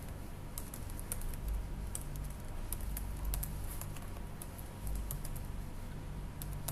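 Typing on a computer keyboard: irregular key clicks, some in quick runs, over a low steady hum.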